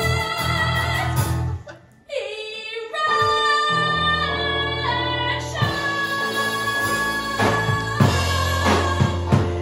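A woman singing a cabaret song live into a microphone, backed by piano and electric guitar. About two seconds in, the band cuts out for a moment and the sound slides down in pitch before the full accompaniment comes back in.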